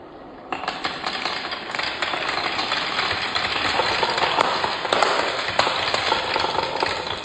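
Many marbles rolling and clattering down a marble run track: a dense, loud rattle of small clicks that starts about half a second in and grows.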